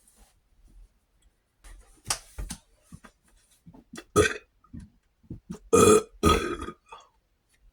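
A person burping several times, bringing up gas from carbonated cola: a smaller burp about two seconds in, a sharper one about four seconds in, and the loudest two in quick succession near six seconds.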